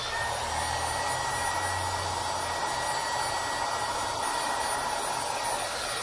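Heat gun running steadily, blowing air with a faint constant high whine. It is played over freshly poured epoxy resin to pop air bubbles.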